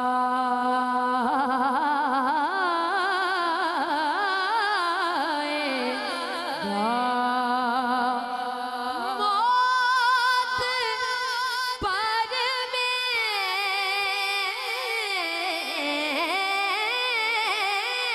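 A boy's voice singing a naat into a microphone, drawn out in long melismatic lines. It opens on a long held note, then breaks into wavering, ornamented runs that dip lower and then climb higher about halfway through.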